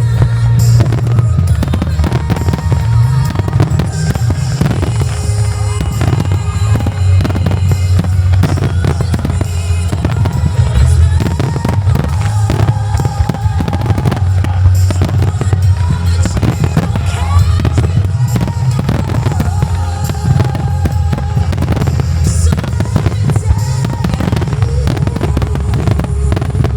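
Fireworks display finale: aerial shells going off in a dense, continuous barrage of booms and crackles, with music playing underneath.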